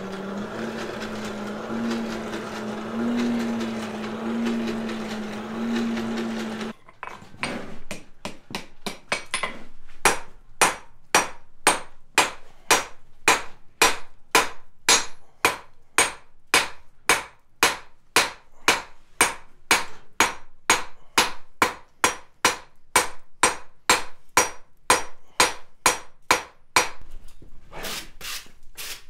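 A coal forge's blower hums steadily for about the first seven seconds, then a hand hammer strikes hot steel on an anvil in an even run of about two blows a second, spreading a flat bar into a tapered blade. The blows pause briefly near the end before a couple more.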